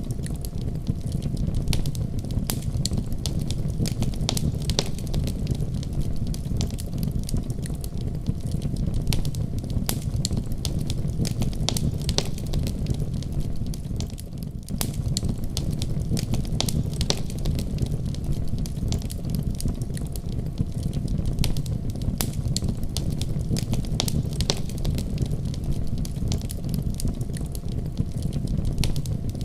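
Firewood burning in a wood stove: irregular sharp crackles and pops over a steady low rumble of the fire.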